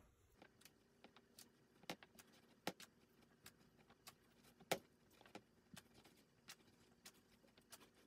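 Faint, irregular light clicks and taps of cotton rope being wrapped around a copper pipe frame, the sharpest about two thirds of the way through, over a faint steady hum.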